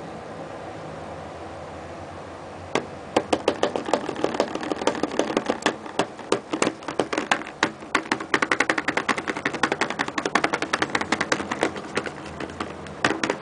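Fingers tapping rapidly on the surface of a non-Newtonian fluid in a plastic tub: a quick, irregular run of sharp taps, several a second, starting about three seconds in over a steady background hum.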